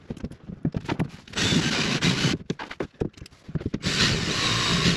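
Cordless drill run in two bursts of about a second each against a plastic diesel fuel tank, with handling knocks and clicks between.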